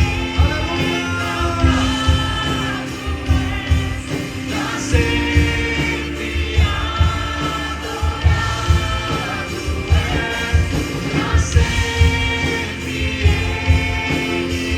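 Church worship song: a group of voices singing over band accompaniment with a steady beat.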